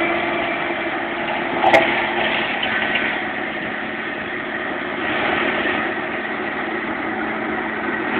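Fendt 930 tractor's diesel engine running at full power, pulling an AHWI RF800 forestry rotary spader digging 40 cm deep in light soil; a steady, dense machine noise, with one sharp knock a little under two seconds in.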